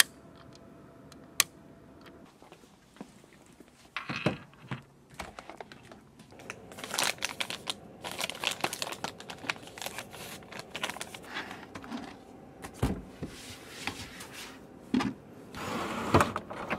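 Desk being cleaned by hand: a cloth rustling and crinkling as it is unfolded and wiped over surfaces, with small knocks and clicks of things being handled. A single sharp click comes about a second in, before the rustling starts.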